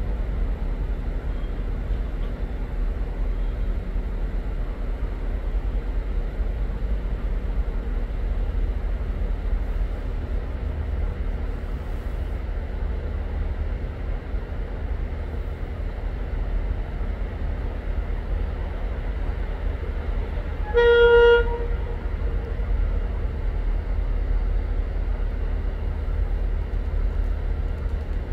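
A single short toot from a train, about half a second long with a clear pitched tone, about three-quarters of the way through, over a steady low rumble.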